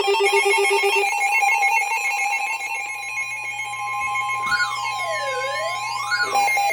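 Electronic emergency-alert tones. A fast warbling, phone-like ring stops about a second in, leaving several steady tones. From about four and a half seconds in, a siren-like tone sweeps down and back up every second and a half or so.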